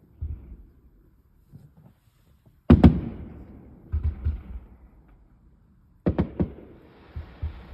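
Aerial fireworks bursting: a pair of sharp bangs a few seconds in, lower booms about a second later, then a quick run of three bangs and more booms near the end, each trailing off in a long rumble, with faint crackling at the close.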